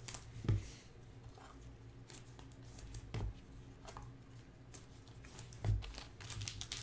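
Trading cards being handled and flipped through by hand, with faint rustling and three soft thumps as cards or packs are set down on the table.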